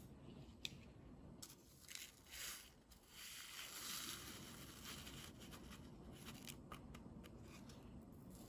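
Instant coffee granules poured from a stick packet into a measuring spoon and tipped into a bowl: a faint rustling hiss, loudest in the middle, with small ticks and taps of the spoon and granules.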